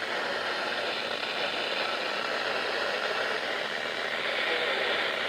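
Steady hiss of radio static from a weather radio receiver, even and unbroken.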